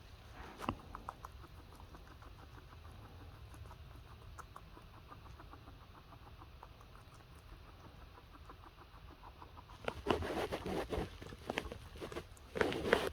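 Lettuce being chewed: rapid, crisp munching clicks, with louder bursts of crunching about ten seconds in and again near the end.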